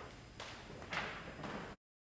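Three faint, short knocks in a large room, then the sound cuts out abruptly to dead silence near the end.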